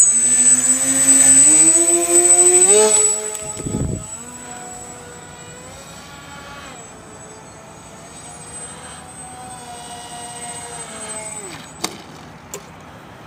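Electric motor of an RC glider running up in steps to a loud high pitch, then running steadily at a lower speed with a thin high whine, and spinning down to a stop about two seconds before the end.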